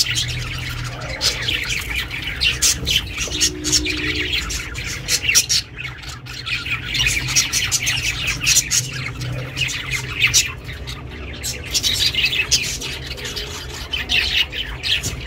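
Budgerigars chirping and chattering without pause, many quick high chirps overlapping, over a steady low hum.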